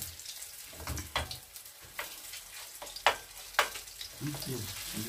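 Kimchi pancake batter sizzling in hot oil in a frying pan, with several sharp clacks of cooking utensils against the pan. The loudest two come about three seconds in, half a second apart.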